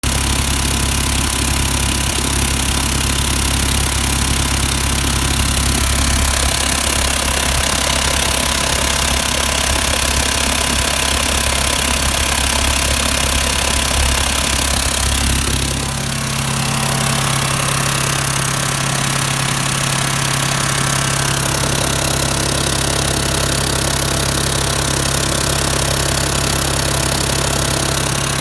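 VW T4 van's engine running with a strange noise that the owner suspects may be a leaking or cracked exhaust manifold. About halfway through, the engine speed rises and holds steady at the higher speed.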